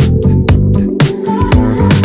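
Background pop music with a steady electronic drum beat and bass, in an instrumental gap between sung lines.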